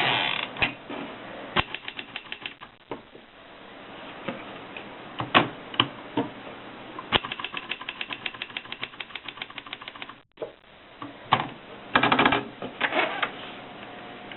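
1939 Erika 5 manual typewriter being worked: sharp single key strikes and runs of quick, even clicks, with a denser clatter about twelve seconds in.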